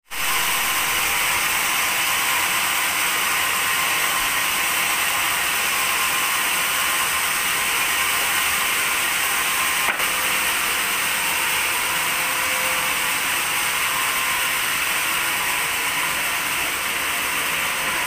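Large band sawmill running steadily, an even mechanical whirr with a hiss in the upper range, with one short click about ten seconds in.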